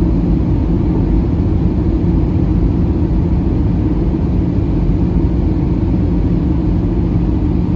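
Airbus A320 in flight during descent, heard from inside the passenger cabin: a steady low rumble of engines and airflow with a constant hum, unchanging throughout.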